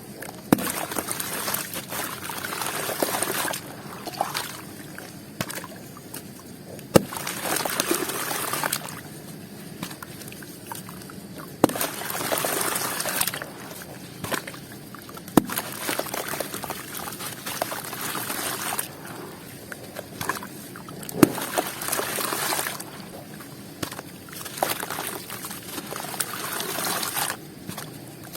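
Crunchy balls and squares being dipped in water one after another, about six times. Each goes in with a sharp tap, followed by a trickling, crackling hiss for a second or two as it soaks and crumbles.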